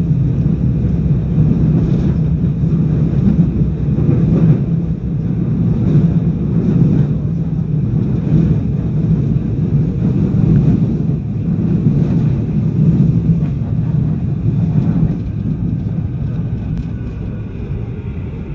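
Seoul Subway Line 4 Korail electric train running through a tunnel, with a loud, steady rumble of wheels on rails heard from inside the train. It grows gradually quieter over the last few seconds.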